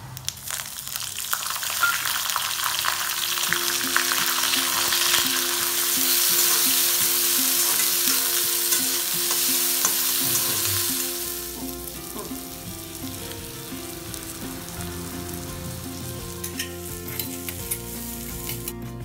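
Spices, chopped onion and green chilli sizzling in hot oil in a kadai while a steel spatula stirs them. The sizzle is loudest in the first half and dies down after about eleven seconds, leaving a softer frying with spatula clicks.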